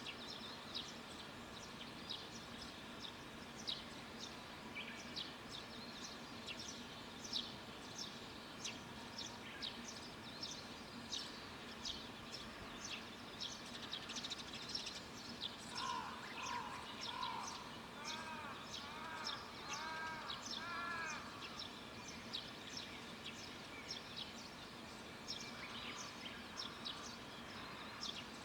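Wild birds calling: a steady run of short, high chirps throughout, joined past the middle by a second bird giving a series of lower, arched, repeated calls for about five seconds.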